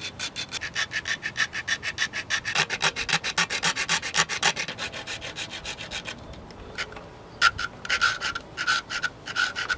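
Hacksaw blade worked by hand, scoring around a grommet in a car's A-pillar trim with quick, even back-and-forth strokes, about six a second. The strokes stop briefly about six seconds in, then resume more slowly with a faint squeak on each.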